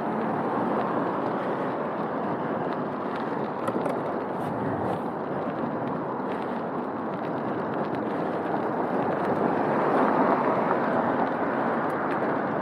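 Steady rushing road noise of a bicycle ride along a street: tyres on the pavement and wind over the microphone, with car traffic going by. The noise swells a little about ten seconds in.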